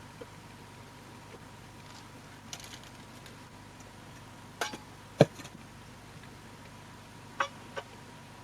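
A few scattered short clicks and knocks, two close together about four and a half to five seconds in, the second the loudest, and two more near the end, over a faint steady hum.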